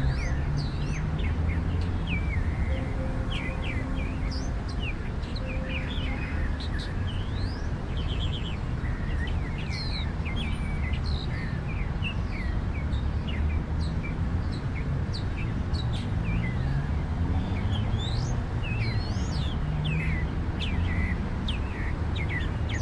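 Many small birds chirping and twittering in quick, short calls over a steady low rumble.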